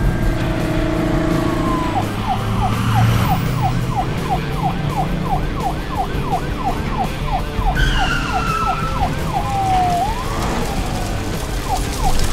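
Fire truck siren switching between a slow rising-and-falling wail and a fast yelp of about four sweeps a second, with the yelp running through the middle and coming back near the end, over a low engine rumble.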